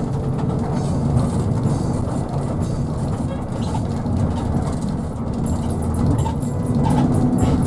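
Steady rumble of a motor vehicle driving, with faint music underneath that grows near the end.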